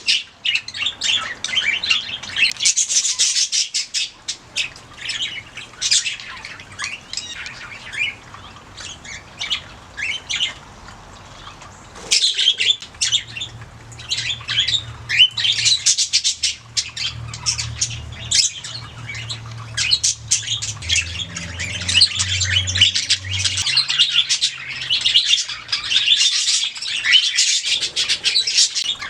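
Budgerigars chirping and warbling in rapid, overlapping calls, thinning out for a few seconds about a third of the way through. A faint low hum sits underneath in the middle stretch.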